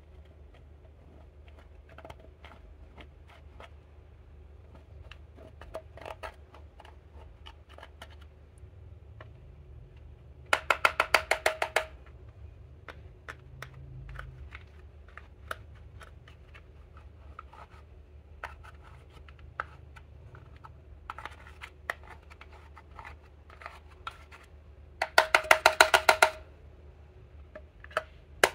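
A dotting tool scraping and picking crumbled eyeshadow out of a plastic compact palette: scattered small scratches and clicks, with two runs of rapid sharp tapping, about ten taps a second for a second or so, a third of the way in and near the end.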